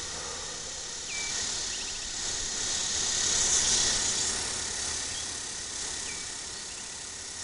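Outdoor ambience: a soft rushing hiss that swells and fades around the middle, with a few short chirps at about 1 and 6 seconds in.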